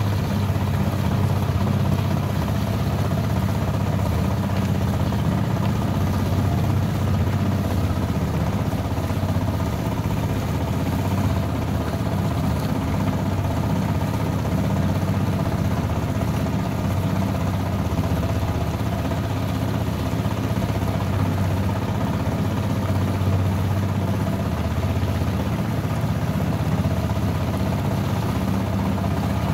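Small wooden river boat's engine running steadily under way, an even drone that holds the same pitch throughout.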